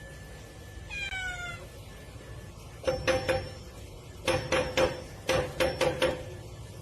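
Cat vocalising: one falling meow, then a string of short, sharp cries in two quick runs.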